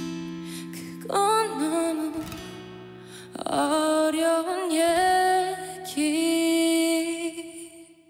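A woman singing slow, held phrases with vibrato over a strummed acoustic guitar: three long sung lines, the first about a second in, the next about three and a half seconds in and the last about six seconds in, with the sound dying away at the end.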